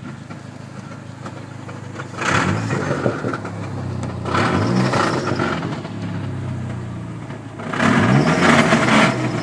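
Dodge SRT-4's turbocharged 2.4-litre four-cylinder engine idling and revved three times, the last rev the longest and loudest. The owner says revving brings out a grinding noise that began after he forced the gearbox into fourth gear.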